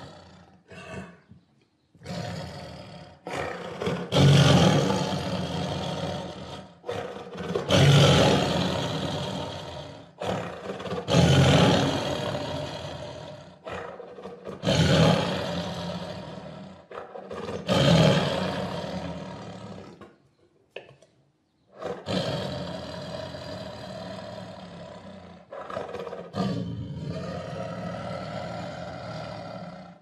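Tiger roaring over and over, a new roar every three or four seconds, each starting loud and fading out, with a short silent break about two-thirds of the way through.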